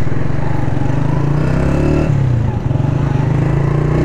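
Honda CG 125 SE's single-cylinder four-stroke engine running as the motorcycle rides along. Its note climbs, drops sharply about two seconds in, then holds steady.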